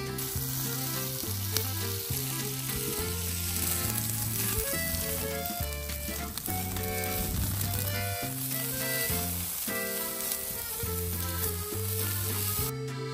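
Shorlog, Mongolian skewered meat, sizzling steadily as it cooks, with background music carrying a stepping bass line.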